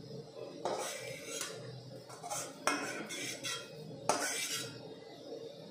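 Metal spatula scraping and clinking against a metal kadai and a steel plate as fried egg is lifted out, a run of short scrapes and clinks with a sharp clink near the middle and another about four seconds in.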